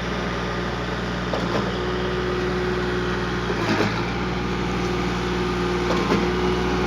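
Putzmeister 715 TD concrete pump running steadily while pumping concrete, with a short surge and change in pitch about every two seconds, three times, as the pump changes stroke.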